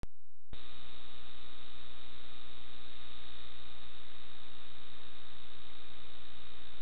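Steady electrical hum with hiss on the recorder's audio channel, beginning about half a second in and unchanging, with no distinct events.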